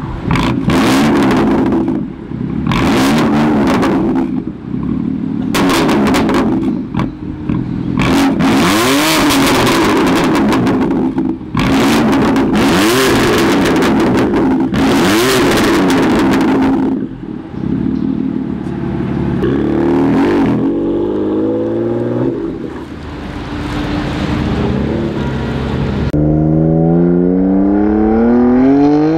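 BMW M4 Competition's S55 twin-turbo straight-six, through an M Performance exhaust, revved hard in a series of short blips while standing, then settling to a lower, steadier running note. About three seconds before the end it is heard accelerating, its pitch rising steadily.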